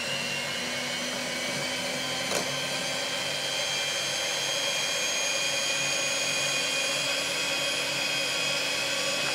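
Electric hand mixer running steadily, its beaters whipping thick cream and sour cream into a thick, creamy mix, with one brief click about two seconds in.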